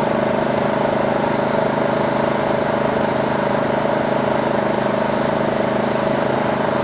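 Craftsman 3000i inverter generator's engine running steadily under the load of a small window air conditioner. A run of four short high beeps sounds, then two more, as the air conditioner's temperature setting is stepped down by remote.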